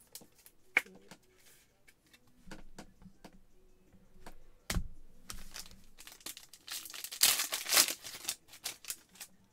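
Trading cards being handled with scattered light clicks and a single thump near the middle. About seven seconds in, a card pack's plastic wrapper is torn open with a loud burst of crinkling that lasts about a second and a half.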